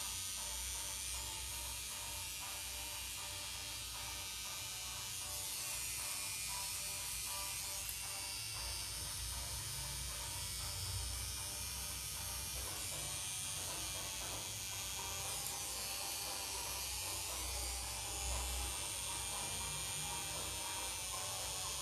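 Tattoo machine buzzing steadily while the needle works ink into skin.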